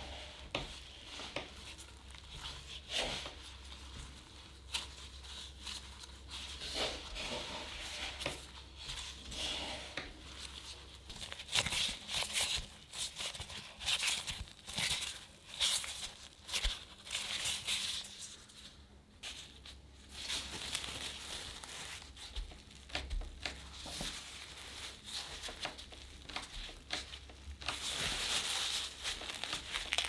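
Gloved hands squeezing and kneading crumbly butter shortbread dough in a wooden bowl and pressing it into a ball: thin plastic gloves crinkle and the dough crumbs rustle and rub, with irregular soft taps and pats. The crinkling grows denser near the end.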